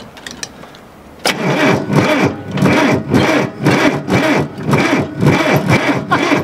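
John Deere tractor's diesel engine cranked by its starter in cold weather, turning over slowly with a rhythmic chug about twice a second from about a second in, and not catching. The owner puts the slow cranking down to the new battery not having been charged.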